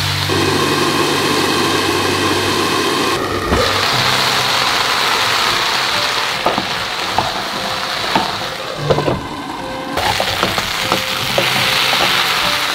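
Diced potatoes sizzling in oil in a frying pan, a steady hiss. From about halfway through, a spatula clicks and scrapes against the pan a number of times.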